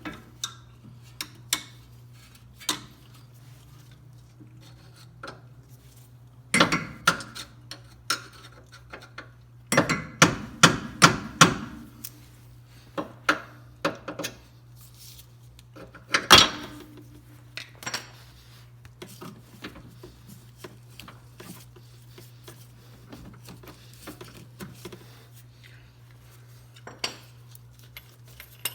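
Hand tools knocking and clinking on metal suspension parts during a lower control arm job, with a quick run of about ten taps about ten seconds in and one sharp loud strike a few seconds later.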